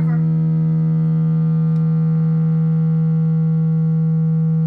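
A steady, unwavering electric drone at one pitch, with many overtones, coming from the electric guitar's amplifier rig. It holds a constant level and does not fade the way a plucked note would.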